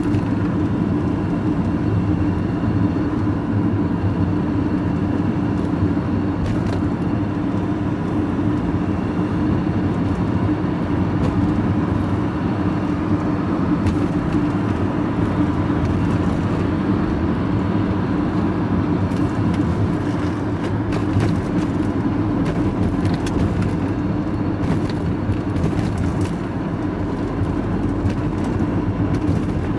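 Steady engine drone and road noise inside the cab of a moving vehicle cruising at an even speed, with a few faint rattles in the second half.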